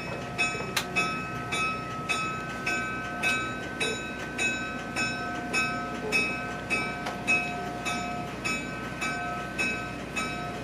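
Diesel locomotive's bell ringing steadily, struck about once every 0.6 s, with its tone carrying on between strikes, as the train gets under way. Under it runs a low steady rumble.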